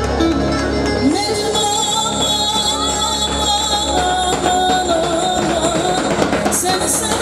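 A woman singing long, wavering held notes into a microphone, amplified through a PA, over a Korg electronic keyboard accompaniment.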